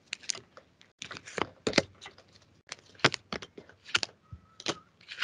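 An irregular run of short, sharp clicks and taps, about two or three a second, with a faint thin tone near the end.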